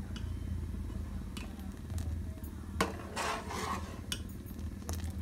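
Metal ladle stirring milky kheer in a steel pot, scraping and clinking against the pot a few times. The strongest clink comes about three seconds in.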